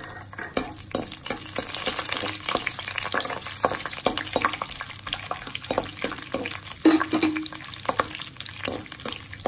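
Cashew nuts sizzling as they fry in ghee in a kadai, a steady hiss with frequent clicks and scrapes of a metal slotted spatula stirring them against the pan; the loudest knock comes about seven seconds in.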